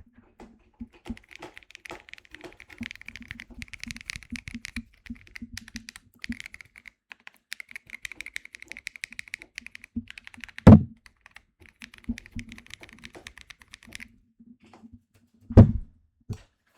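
Typing on a Keychron Q6 HE 8K full-size keyboard with magnetic Hall-effect linear switches: a fast, dense run of key clacks that thins out near the end. There are two much louder thumps, about eleven and fifteen seconds in.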